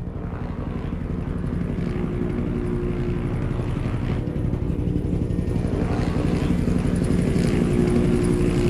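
Helicopter in flight, its rotor blades chopping rapidly under a steady engine whine, growing steadily louder as it approaches.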